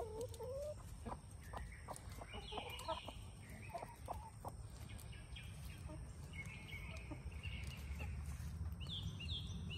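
A flock of hens clucking softly and giving short, high, rising-and-falling calls while they feed, with scattered small taps.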